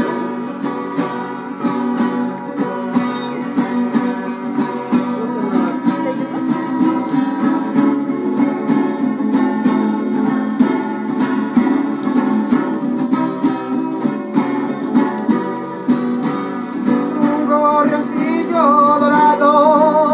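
Instrumental break in a Mexican folk song: strummed guitars playing a steady rhythm with a plucked melody. A wavering melody line comes in near the end, as the verse returns.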